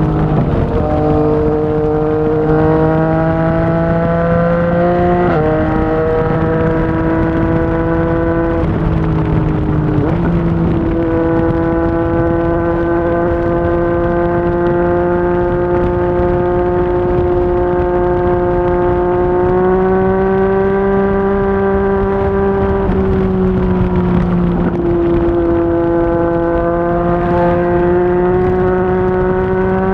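Yamaha MT-09's inline-three engine through a Yoshimura R55 slip-on exhaust, heard while riding at a steady cruise. The exhaust note holds a steady pitch, rises and falls a few times with throttle, and dips briefly near ten seconds in.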